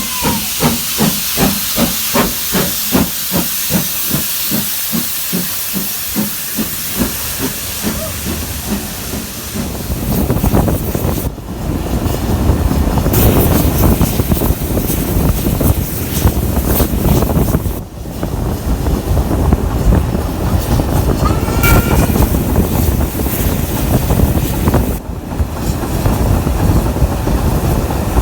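Steam locomotive working, its exhaust chuffing about two to three times a second over a steady hiss of steam. After about ten seconds this gives way to a louder, deeper, steady rumble of the train running, broken by a few abrupt dips.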